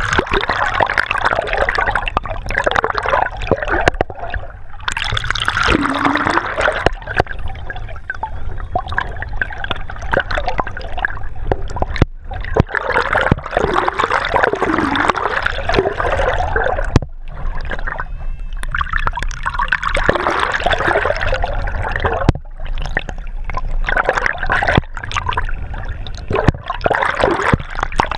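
Sea water rushing and gurgling past a camera held underwater at the bow of a moving sailing yacht, a dense churning noise broken by short sudden gaps every few seconds.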